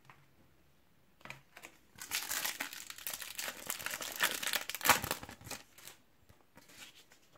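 Crinkling and rustling of a foil Topps Match Attax booster pack as it is handled and torn open, starting about two seconds in, with its sharpest rip about five seconds in.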